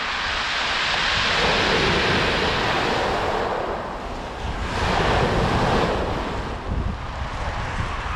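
Sea waves breaking and washing up a pebble beach, swelling twice, with wind rumbling on the microphone.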